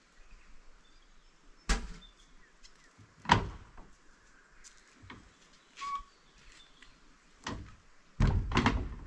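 A handful of scattered knocks and thuds, one every second or two, the loudest about a third of the way in and a short run of them near the end, with faint bird chirps between.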